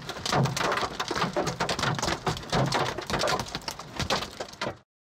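Hail and rain pounding on a car, a dense, irregular clatter of hard hits that cuts off abruptly near the end.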